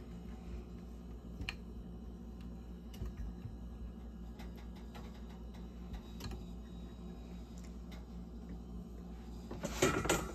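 Hand-cranked ravioli attachment on a stand mixer making faint, irregular clicks and ticks as its rollers press out the filled pasta sheet, over a steady low hum. A louder clatter comes near the end.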